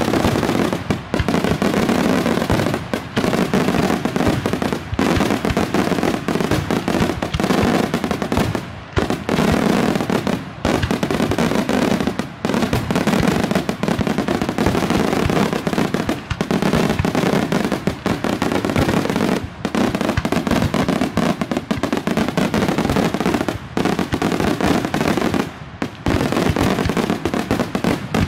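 Daytime Italian fireworks (pirotecnica diurna): a dense, almost unbroken barrage of aerial bangs and crackling from many small shells bursting overhead, with brief lulls every second or two.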